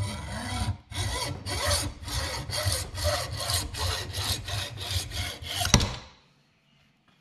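Hand hacksaw cutting through a plastic drawer catch held in a bench vise: quick, even back-and-forth strokes, about two to three a second. The sawing stops about six seconds in, just after a sharp click as the cut-off piece comes free.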